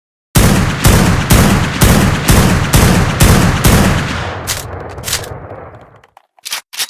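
Fabricated sniper rifle sound effect: eight shots fired about two a second, each with a heavy rumbling tail that builds and slowly fades. Two sharp clicks come through the fading tail, and two more follow near the end.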